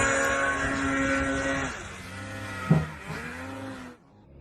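Snowmobile engine running at high revs with a steady pitch, easing off about two seconds in, with a single sharp knock a little later. The sound drops away shortly before the end.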